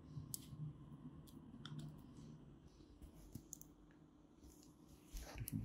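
Faint, scattered clicks and taps of metal dental instruments over a low room hum.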